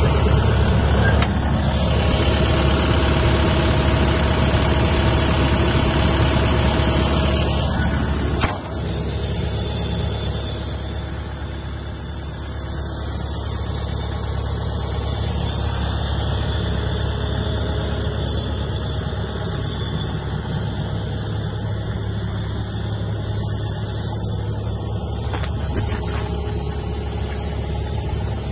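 Hitachi ZX130LCN-6 excavator's diesel engine idling steadily, with one sharp click about eight seconds in.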